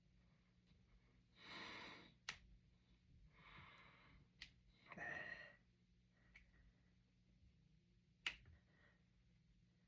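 Finger knuckles cracking: three sharp single pops, the last one, near the end, the loudest, with breathy exhales between them.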